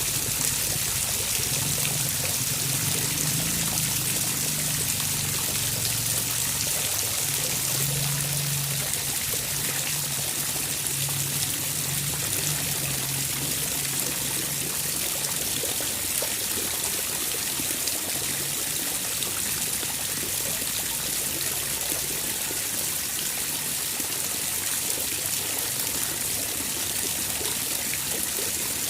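Water trickling and pouring steadily, with a low hum underneath for about the first half.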